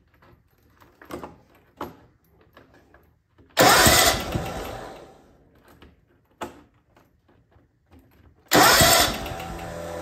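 Starter cranking the 17 hp V-twin engine of a John Deere LT180 riding mower on full choke, twice, each try about one and a half to two seconds long. The engine turns over but never catches, a no-start that the owner traced to an intake valve not moving on one cylinder.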